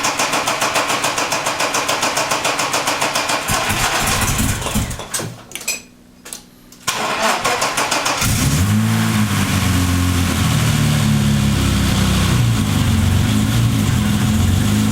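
BMW E30 325i's inline-six being cranked by its starter in a rhythmic pulsing, about four pulses a second, on its first start after an engine install. The cranking pauses for a couple of seconds and resumes. About eight seconds in the engine catches and settles into steady running.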